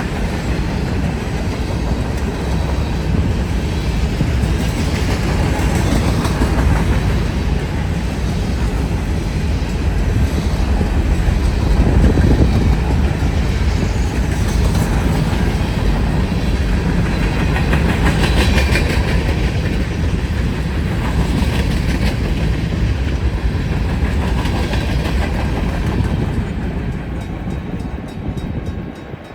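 Freight cars of a CSX grain train rolling past, a steady rumble with wheels clacking over the rail joints, fading over the last few seconds.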